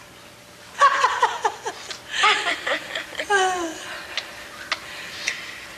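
A woman laughing in several bursts: a quick run of short falling 'ha's about a second in, a breathier burst around the middle, and another falling laugh soon after, then it dies away.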